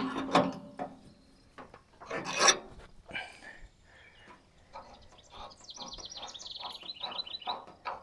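Scattered clinks, knocks and rubbing from hand work on a sawmill's belt drive as a new drive belt is fitted; the loudest knock comes about two and a half seconds in. A bird trills briefly in the background, a quick run of high notes falling in pitch, about six seconds in.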